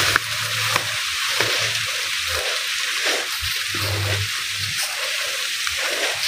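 Continuous crackling rustle of dry cut grass and stalks, trodden and brushed underfoot by someone walking through them.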